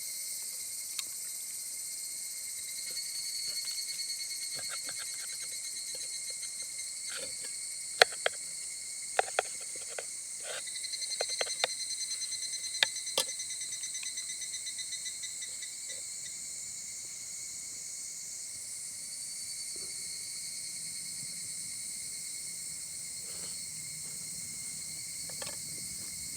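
Crickets and other insects chirping steadily in a high-pitched drone, with a few sharp crackles from a campfire clustered around the middle.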